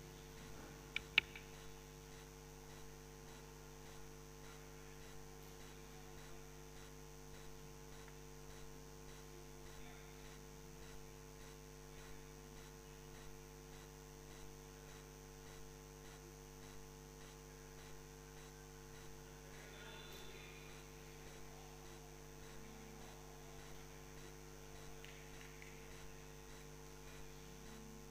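A hushed hall keeping a minute of silence, filled by a steady electrical mains hum. Two sharp clicks come about a second in.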